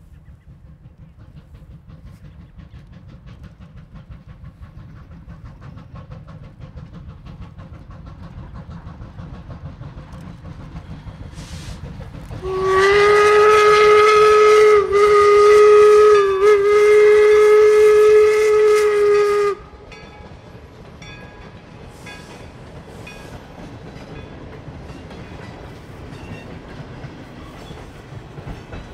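Steam locomotive No. 17 "York", a replica Civil War-era 4-4-0, working past with a steady rhythmic exhaust beat. About halfway through its steam whistle sounds one long, loud blast of some seven seconds on one steady note, wavering twice.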